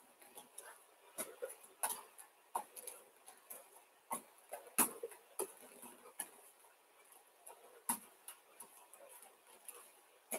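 Faint, irregular taps and soft thumps of forearms and hands landing on judo tatami mats during elbow push-ups, the body moving between forearm plank and hand plank.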